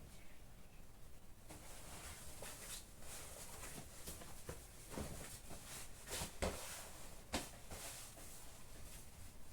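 Faint rustling and handling of clothes being sorted, with a few light knocks, the sharpest about six and seven seconds in.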